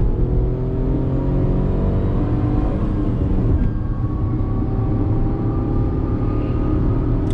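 A Tata Punch's 1.2-litre naturally aspirated three-cylinder petrol engine heard from inside the cabin, pulling under acceleration with its note slowly rising. About three seconds in the note breaks off and drops, as in a gear change, then climbs again, over a steady hum of tyre noise from the concrete road.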